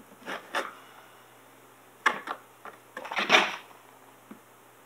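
Scattered short rustles and taps of a hard plastic RC truck body and a wet vinyl decal being handled, pressed and repositioned by hand, a few brief bursts with the longest about three seconds in.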